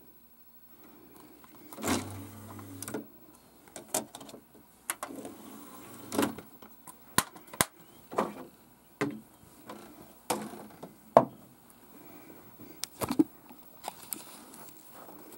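A dozen or more sharp clicks and knocks at irregular intervals, with a brief low hum about two seconds in; the loudest knock comes about eleven seconds in.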